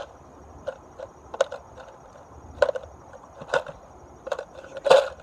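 Lego bricks dropped one at a time into a plastic bottle, each landing with a short clack, roughly one a second, the loudest near the end.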